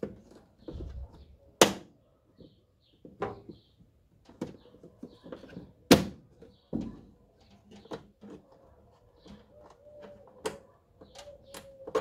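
Plastic windshield cowl panel of a Dacia Duster pressed down by hand so its clips snap into place: a series of sharp plastic clicks and knocks, the loudest about one and a half seconds in, about six seconds in and again at the very end.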